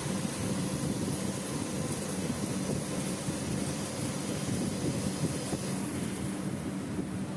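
BLIN BL-H40TC CNC lathe running: a steady machine hum with a constant hiss over it, the hiss thinning out about six seconds in.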